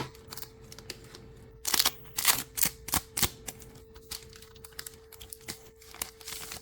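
Foil trading-card booster packs crinkling and being torn open by hand: a run of short rustles and clicks, loudest between about two and three seconds in. A faint steady hum sits underneath.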